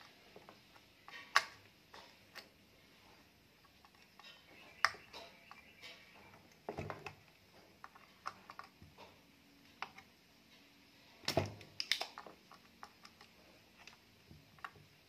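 Scattered small clicks and taps from hands and tools working on a TV circuit board during desoldering, with a louder cluster about eleven seconds in, over quiet room tone.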